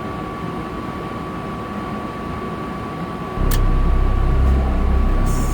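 Propane furnace running: a steady machine hum with a thin high whine, then a little over three seconds in a louder low rumble sets in with a click, as the furnace comes up to full operation.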